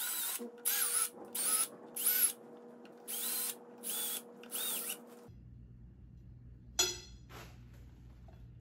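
Cordless drill run in short trigger pulses, about eight in the first five seconds, its motor pitch rising and falling with each, spotting holes in the steel top of an epoxy granite lathe bed. One sharp metallic clink about seven seconds in.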